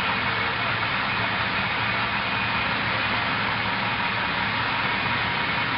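A utility truck's engine idling as the truck creeps slowly across a cargo aircraft's deck, over a steady drone with a faint high whine that fills the hold.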